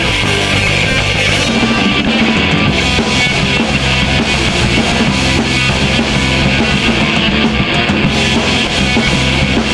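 Live rock band playing an instrumental passage, with electric guitars and a drum kit.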